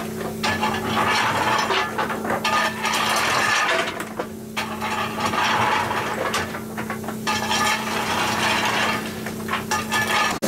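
A coal shovel scraping and digging into a heap of coal lumps in a steam locomotive's tender, the lumps rattling and sliding, in spells of a few seconds with short pauses. A steady hum runs underneath.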